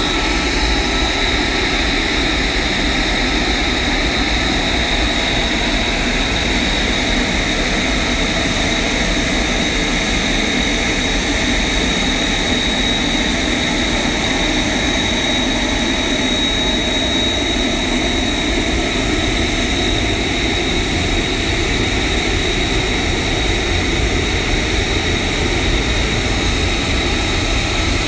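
F-35B's Pratt & Whitney F135 turbofan running at low taxi power as the jet moves along the carrier flight deck: steady, loud jet noise with a constant high whine on top.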